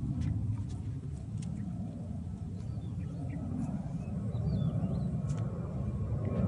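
Low, gusting wind rumble on the microphone, with a few faint bird chirps about halfway through.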